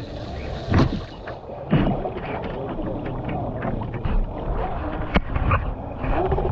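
Choppy lake water slapping and splashing against the hull of a Traxxas Spartan RC boat, with a few sharp knocks as waves strike it.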